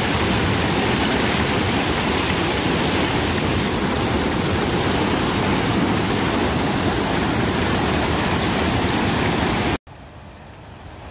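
Steady rush of flowing water, loud and even, that cuts off abruptly about ten seconds in, leaving a much quieter hiss.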